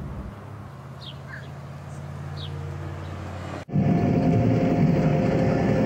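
A car engine idling low and steady with a few faint bird chirps. A little over halfway it cuts off abruptly to the louder, steady rumble of an approaching diesel locomotive.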